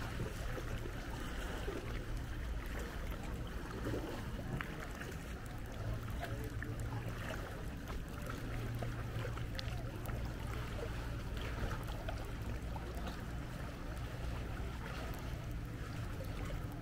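Water lapping and splashing around a paddled sea canoe, with a few light paddle splashes, over a steady low rumble.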